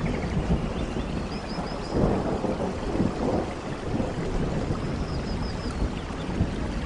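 Steady rain falling in a forest under a low, continuous rumble of thunder. Twice, a faint run of four quick high chirps sounds through the rain.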